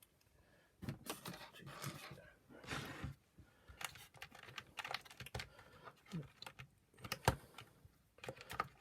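Irregular clicking and rattling of plastic parts of a Shark power nozzle being handled, as its circuit board and wires are worked loose, with one sharp, louder click about seven seconds in.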